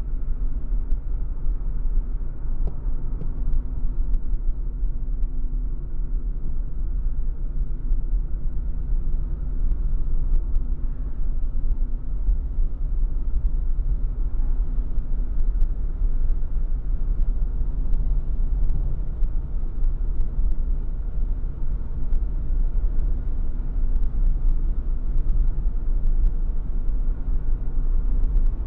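A car driving uphill: a steady low rumble of engine and road noise with a faint engine hum, and scattered light clicks or rattles.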